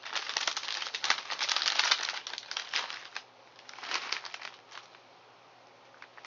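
Snack bag crinkling as it is handled. The crinkling is dense for about three seconds, comes again in a short burst about four seconds in, then stops.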